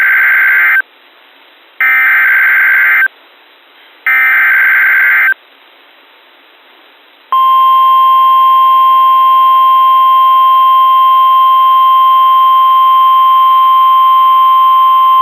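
Emergency alert SAME header: three data bursts of about a second each, a second apart. About seven seconds in, a steady NOAA Weather Radio warning alarm tone near 1050 Hz starts and holds. Together they are the signal that announces a new weather warning, here a severe thunderstorm warning.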